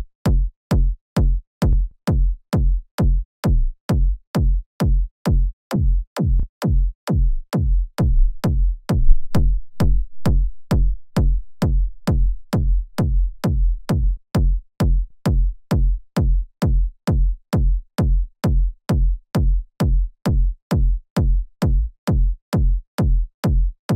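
Distorted techno kick drum synthesized in Serum, repeating evenly a little over twice a second, each hit a deep low thump with a thin click on top. Partway through, the tail of each hit smears and changes tone as a low-frequency dispersion effect is turned up, and the hits settle again after that.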